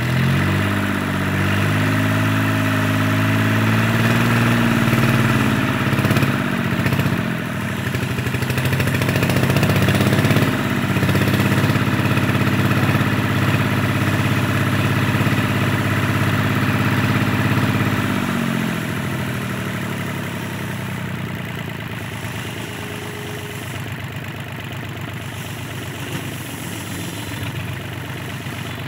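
Mitsubishi K3F three-cylinder diesel engine running at high speed, dipping briefly and picking up again. About two-thirds of the way through it is throttled back to a slower, quieter steady run.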